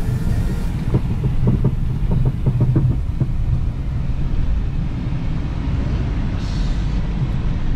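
Off-road vehicle driving over desert sand, heard from inside the cabin: a steady low rumble of engine and tyres. A run of short knocks and rattles comes between about one and three seconds in.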